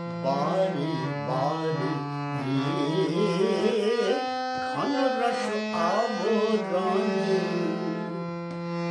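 Harmonium playing held chords and a melody while a man's voice sings long, ornamented, wavering phrases over it.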